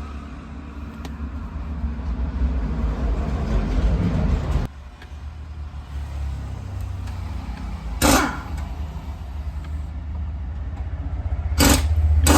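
A motor vehicle engine runs with a steady low rumble. A rising noise over it cuts off abruptly about four and a half seconds in, and there are two sharp knocks later on.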